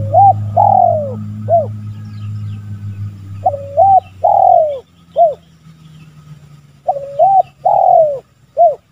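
Spotted dove (tekukur) cooing: three phrases about three seconds apart, each a short double note, a long falling coo and a short closing note. A low rumble underneath fades out about halfway through.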